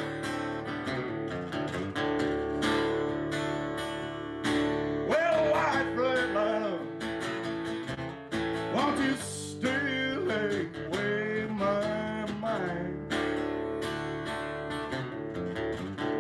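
Solo steel-string acoustic guitar, strummed chords mixed with picked lead lines, with some notes bending in pitch around the middle.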